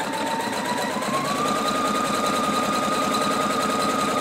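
Electric sewing machine running a zigzag applique test stitch at a steady speed. The motor's whine rises slightly about a second in and then holds, over the rapid, even ticking of the needle.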